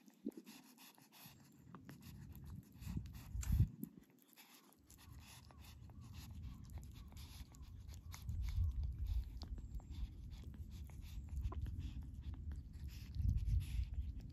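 A young cat lapping milk from a metal dish, its tongue making many small wet clicks. A low rumbling noise comes and goes under it, strongest in a couple of surges a few seconds in and again through the second half.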